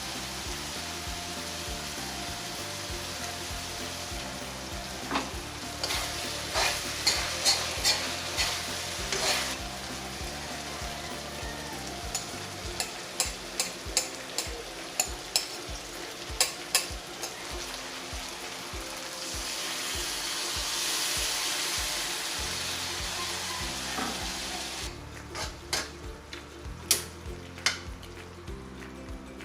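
Lemongrass-marinated chicken sizzling as it fries in a pan, with a spatula clacking and scraping against the pan in irregular strokes. The sizzle swells louder for a few seconds about two-thirds of the way through.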